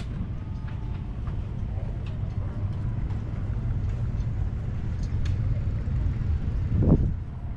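Low, steady rumble of engines running, with one louder thump near the end.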